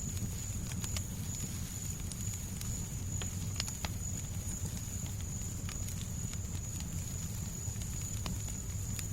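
Fireplace fire crackling, with scattered sharp pops over a steady low rumble and a constant high hiss of white noise.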